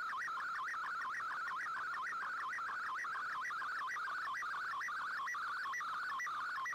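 Shortwave radio digital-mode signal: an MFSK picture transmission, heard as a steady warbling tone that wobbles rapidly up and down in a quick regular rhythm as the image's pixel lines are sent.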